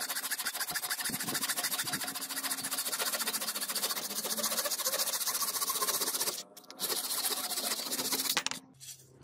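Hand saw cutting through an old wooden hatchet handle flush with the rusty head, sawing off the handle so it can be removed from the eye. Fast, steady back-and-forth strokes with a brief pause a little past six seconds, then the sawing stops suddenly near the end.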